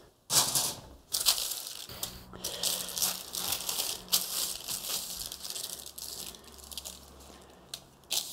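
Irregular crunching, scraping and rattling from the crisp streusel crust of a baked cake as it is handled and freed from its tin, loudest about a third of a second and about a second in.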